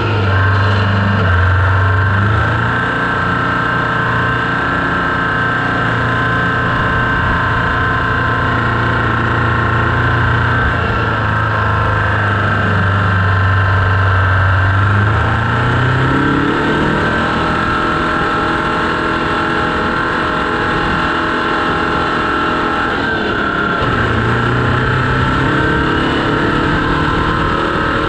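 Oliver 1950 tractor's GM 4-53 Detroit two-stroke diesel running hard while the tractor drives through snow. The engine note rises about halfway through and settles back lower near the end.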